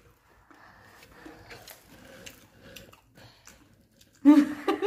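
Faint scattered clicks and soft rustling close to the microphone, then a voice breaks in loudly just after four seconds in.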